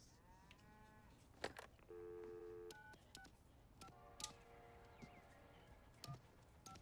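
Telephone handset picked up with a click, a dial tone for under a second, then a series of short touch-tone beeps as a phone number is keyed in.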